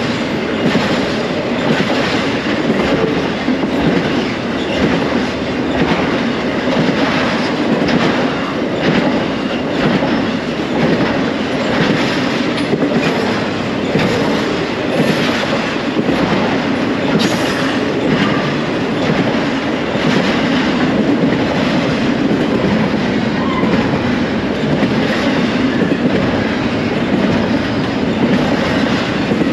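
Intermodal freight train of stack cars and trailer flatcars rolling past close by: steel wheels running on the rails in a steady rumble, with clickety-clack from the wheel sets passing over rail joints about once a second.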